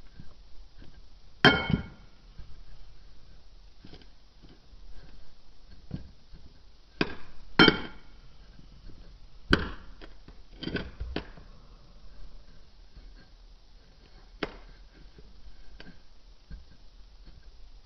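Kinetic sand being pressed and packed into a wine glass with a clear rod: soft crunching squishes, broken by several sharp knocks where the rod strikes the glass, which rings briefly after the louder ones.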